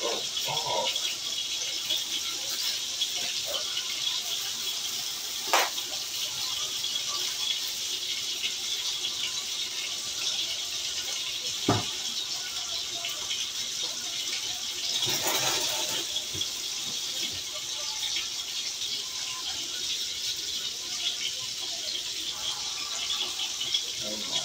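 Steady crackling sizzle of food frying in a skillet on an electric stove. There is a sharp click a few seconds in, a knock about halfway, and a louder rustling stretch soon after as the pan is handled.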